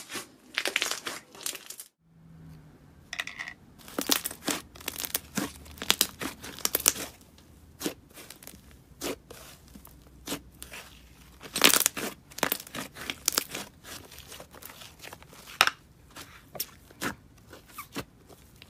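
Hands squeezing, folding and stretching thick, glossy slime, which gives off irregular sticky crackles and pops. There is a short break about two seconds in, where one slime gives way to another.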